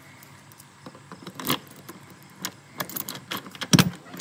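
A ring of keys jangling and clicking at a door's deadbolt lock as it is unlocked, the clicks coming more often toward the end, with one heavier clunk near the end.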